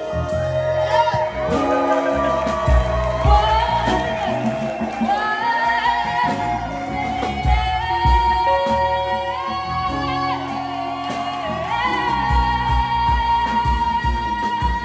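Live band playing: a woman singing long held, sliding notes over violins, keyboard and a steady drum beat.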